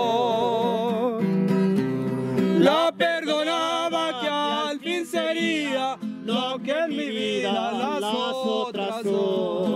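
Acoustic guitar accompanying a man singing a ranchera: a long held note with vibrato ends about a second in, and more sung, wavering vocal lines follow over the strummed guitar from about three seconds on.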